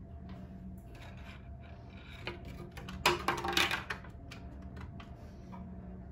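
A toy's box being opened by hand: small taps and rubs, then a loud rasping crinkle of packaging about three seconds in, lasting about a second.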